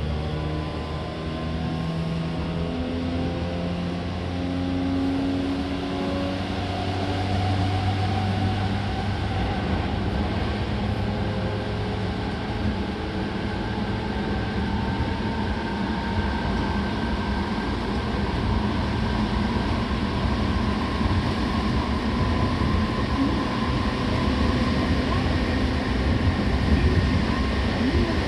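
Seibu 6000 series electric train running under power: the Hitachi GTO-VVVF inverter and traction motors give stepped tones that change in jumps over the first several seconds, then whine rising slowly in pitch as the train gathers speed, over building wheel and track noise.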